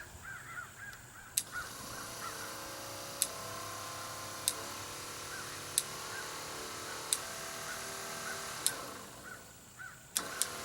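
Electric trolling motor running on a freshly replaced speed switch as the switch is clicked through its forward speeds. There is a sharp click about every second and a half, and the motor's hum changes pitch after the clicks. The motor dies away near the end.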